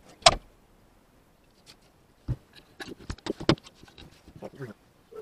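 One sharp knock, then from about two seconds in a quick run of clicks, knocks and rattles as the camera on its makeshift sun-visor mount is handled and turned.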